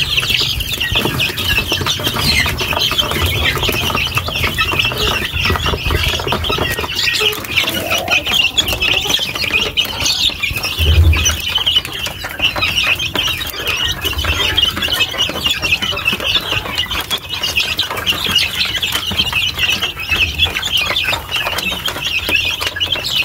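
A pen of young chickens peeping shrilly and continuously, many cheeps overlapping, with a few low bumps, the strongest about eleven seconds in.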